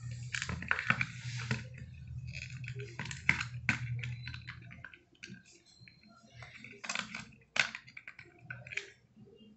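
Hands fitting an RC rock crawler's battery pack into its plastic chassis: irregular plastic clicks and taps as the plug is connected and the pack pressed into its compartment. A low steady hum underlies the first half and fades out about halfway.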